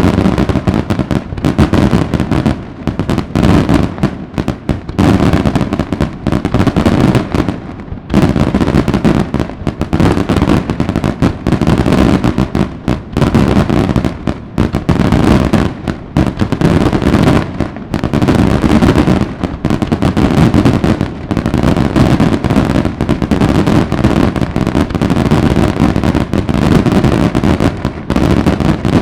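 Daylight fireworks: a dense, rapid barrage of aerial salutes banging almost continuously, reports overlapping one another with only brief dips. The barrage starts abruptly.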